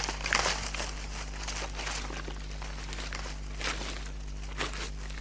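Dry leaf litter rustling and crackling in short, irregular bursts, the sound of a brush-turkey's leaf mound being scratched and disturbed.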